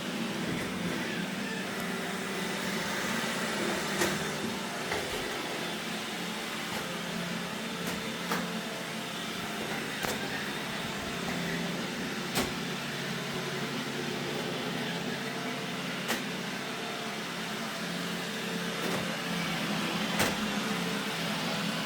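Robot vacuum running steadily with a motor hum, with a sharp knock every two to four seconds.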